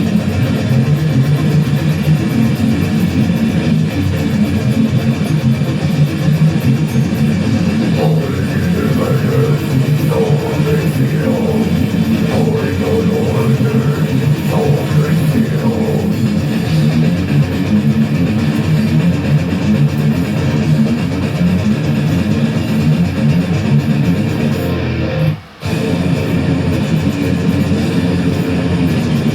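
Background music led by guitar, with a steady beat, briefly dropping out about 25 seconds in.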